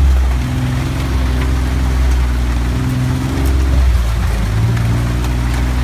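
Utility vehicle (side-by-side "mule") engine running under way on a trail, its speed rising and falling, with rain noise behind it.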